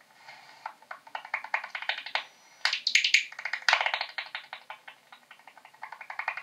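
Bat echolocation calls made audible by a bat detector: a rapid, irregular series of clicks that bunch up into dense runs, loudest a little before the middle.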